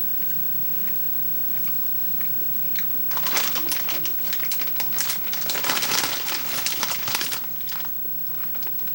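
Kit Kat wrapper crinkling as it is handled, starting about three seconds in and dying away near the end, after a few faint clicks.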